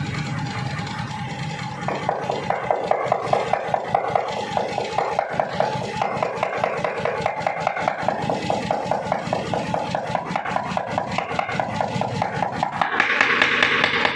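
Small mechanical power hammer running over a steady motor hum. From about two seconds in, the ram strikes in rapid, even blows. A louder rasping noise comes in near the end.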